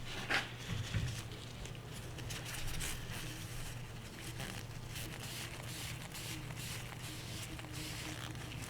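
Faint handling noise from pistol parts being cleaned: two light knocks in the first second, then soft scattered clicks and cloth rustling from wiping, over a steady low hum.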